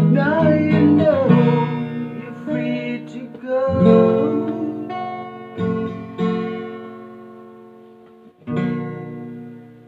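Acoustic guitar playing closing chords, with a sung note held over the first second or so. After that, single strummed chords are struck a few times and left to ring out and fade away.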